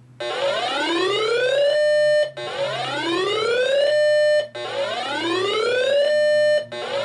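Electronic whooping alarm tone: each whoop climbs in pitch for about a second and a half, holds its top note briefly, then breaks off, repeating about every two seconds, four times. It is the alert sound heralding an incoming severe thunderstorm warning.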